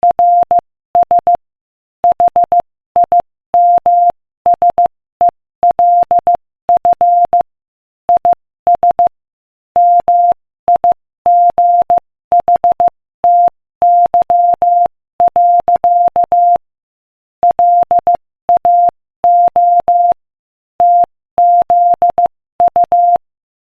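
Morse code sent at 15 words per minute as a single steady mid-pitched tone, keyed in short dots and longer dashes grouped into letters and words. It stops shortly before the end.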